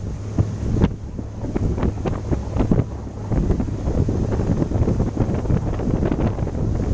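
Wind buffeting the microphone on a pontoon boat under way, in uneven gusts, over the low steady hum of the boat's motor.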